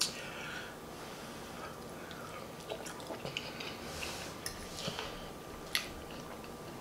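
Quiet mouth sounds of chewing soft food (mashed potatoes and turkey), with scattered light clicks of a metal fork against the plate, the sharpest a little before the end.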